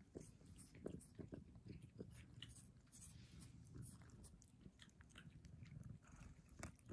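A cat mouthing and chewing at a person's fingers close to the microphone: faint, irregular wet clicks and chewing sounds over a low steady rumble.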